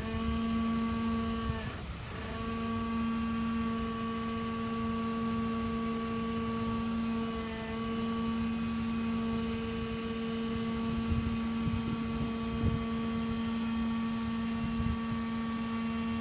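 Brakes of a 2014 Jeep Wrangler giving off a steady, low-pitched moaning tone with a row of overtones over low vehicle rumble. The tone breaks off briefly about two seconds in, then holds.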